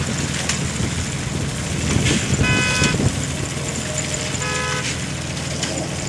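Farmall Super H's four-cylinder engine running steadily under load as it pulls a McCormick-Deering grain binder, with the binder's mechanism working in the field. Two short horn-like toots sound about two and a half and four and a half seconds in.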